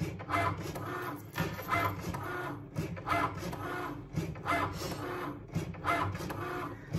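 Cricut Maker cutting machine running its calibration cut: the carriage motors whir in short, repeated runs, about two a second, as the blade head shuttles across the sheet.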